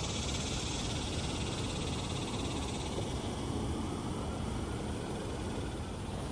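Steady outdoor background noise, strongest at the low end, with a faint high hiss that fades about halfway through.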